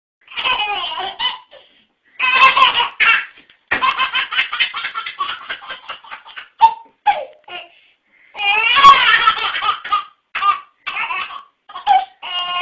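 A baby belly-laughing in several bouts of quick, high-pitched pulsed laughs, broken by short pauses for breath.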